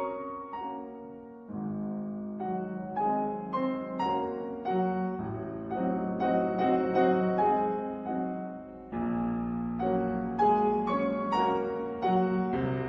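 Background piano music: a gentle melody of separate notes over held low notes, with new low notes coming in about a second and a half in and again near nine seconds.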